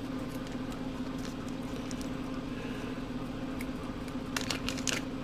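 Small clear plastic bag of transistors crinkling in the hand in a short burst about four and a half seconds in, over a steady background hum.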